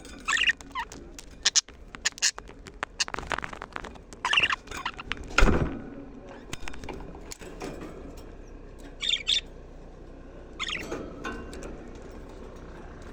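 Budgerigars chirping in short high bursts, mixed with sharp clicks and rattles of birds moving on the wire cage; a loud knock comes about five and a half seconds in.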